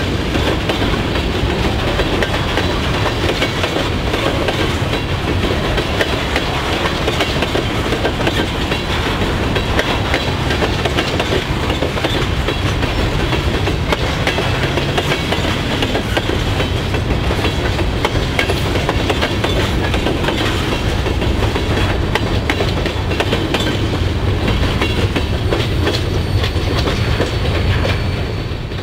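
Freight train of covered hopper cars rolling past, a steady rumble with the clickety-clack of wheels over rail joints. The noise falls away at the very end as the last car clears.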